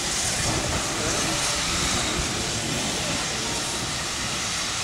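Steam locomotive venting steam with a steady hiss over a low rumble.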